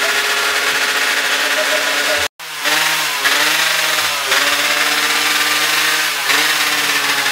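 Drag racing motorcycle engines running loudly and being blipped, the pitch dipping and rising every second or so. The sound cuts out completely for a split second about two seconds in.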